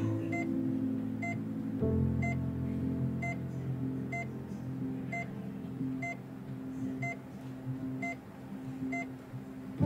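A hospital monitor beeping steadily, a short beep about once a second, over soft background music with held chords.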